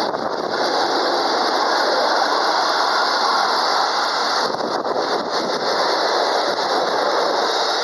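Container freight train's wagons rolling past close by: a loud, steady noise of wheels on the rails.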